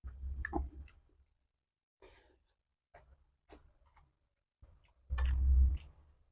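Close-miked eating: chewing and mouth sounds in short bursts, the loudest about a second in and near the end, with a few light clicks in between.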